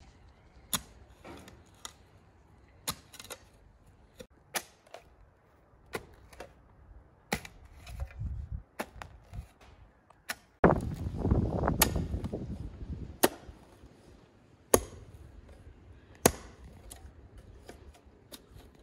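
A series of sharp strikes, about one every second or so, with a louder stretch of rough, scraping noise about eleven seconds in.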